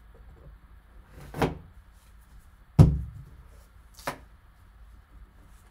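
A sealed cardboard trading-card box being opened by gloved hands: a brief rustle about a second and a half in, a sharp knock just before three seconds that is the loudest sound, and a light click about four seconds in as the lid comes up.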